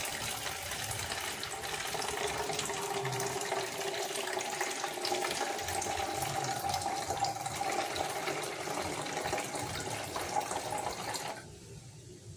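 Juice poured in a thin stream from a plastic cup into a small bottle: a steady trickle that stops abruptly about eleven seconds in.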